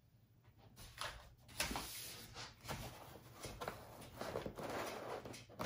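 Hands handling parts in foam-packed cardboard packaging: irregular rustling, rubbing and soft knocks of foam and printer parts being moved, ending in one sharp knock.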